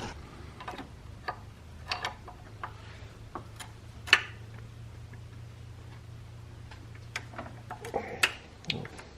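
Irregular metallic clicks and taps as an E36 M3's VANOS unit is wiggled onto the cylinder head, one sharp click about four seconds in and a cluster near the end, over a steady low hum that stops near the end.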